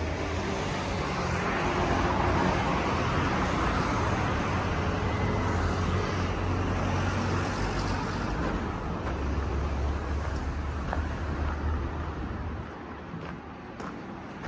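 Road traffic noise: vehicles passing with a steady low engine rumble and a broad rush of tyre noise, easing off near the end.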